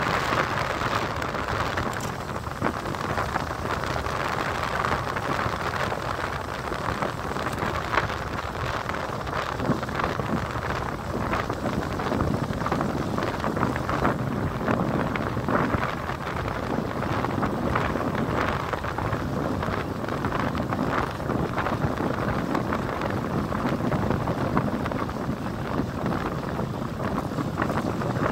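Wind buffeting the microphone of a handlebar-mounted camera on a moving bicycle, over the hum of the tyres on asphalt, with many small rattling clicks from road vibration.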